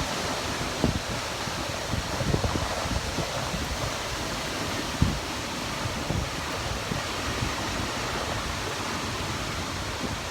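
Typhoon wind blowing with a steady rush, gusts buffeting the microphone with low thumps several times.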